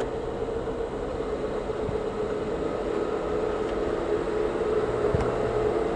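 Car engine and tyre noise heard from inside the cabin while driving slowly, a steady hum with a constant tone. A single soft knock about five seconds in.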